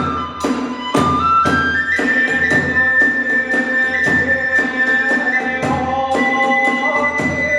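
Kagura hayashi ensemble playing: a bamboo flute holds long notes that step upward, over a steady fast beat of drums and hand cymbals.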